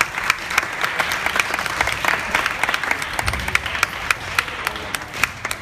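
Spectators at a basketball game applauding: many hands clapping together in a dense, steady patter.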